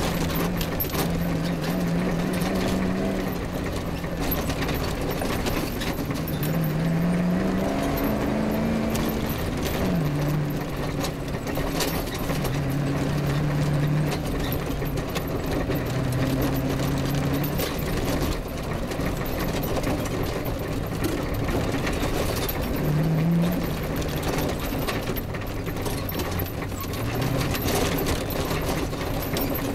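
Off-road rally vehicle's engine under load, its pitch climbing and dropping as it accelerates and changes gear, over a continuous clatter of knocks and rattles from the vehicle jolting along a rough grass track.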